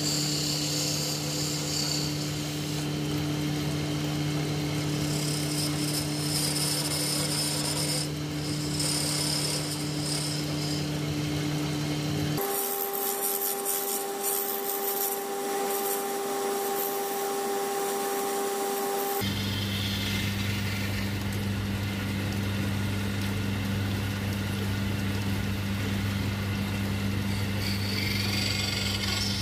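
Wood lathe running with a steady motor hum while a hand-held turning chisel scrapes and cuts the spinning wooden pestle blank. The hum's pitch shifts abruptly twice, once a little before halfway and again about two-thirds through.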